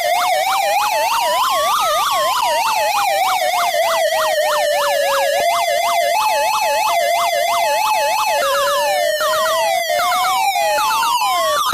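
Argentine police electronic siren: a slow wail rising and falling, overlaid with a fast yelp of about three sweeps a second. About halfway through the wail gives way for roughly three seconds to a two-tone hi-lo pattern, then the rising wail returns near the end.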